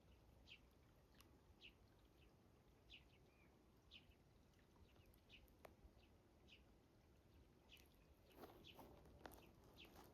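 Near silence with a small bird's faint, short, high chirps repeated about once or twice a second. A few footsteps on gravel come in near the end.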